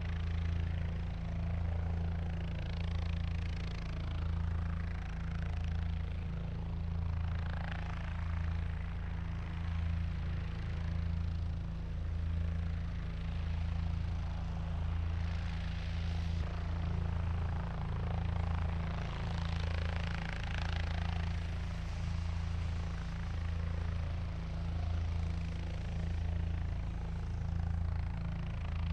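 Helicopter sound: a steady, gently pulsing low hum of rotor and engine, with a rushing noise above it that swells and fades every few seconds.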